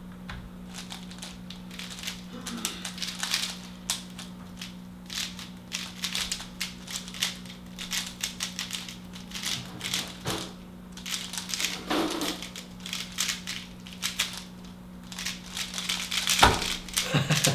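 Two plastic speedcubes being turned fast during a solve: a dense, irregular stream of clicking and clacking turns over a steady low hum, with a few louder knocks near the end as the solves finish.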